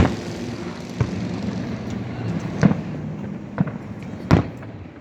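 Distant fireworks shells bursting, five booms about a second apart, the loudest near the end, over a steady low engine-like hum.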